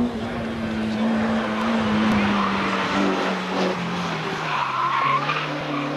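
Rally car's engine at high revs as it comes through a bend, its note dropping in steps. Tyres squeal briefly near the end.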